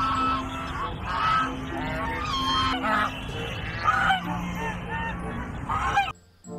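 A flock of domestic geese honking, many short calls overlapping in quick succession; the sound cuts off abruptly near the end.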